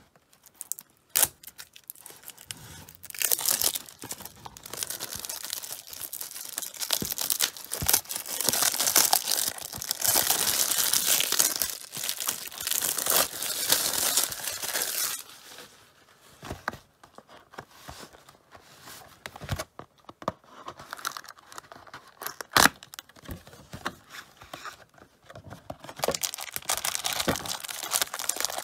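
Clear plastic wrap being torn and peeled off a cardboard trading-card box, crinkling in long rustling stretches, with a few sharp taps from the box being handled. Near the end, foil card packs rustle as they are handled.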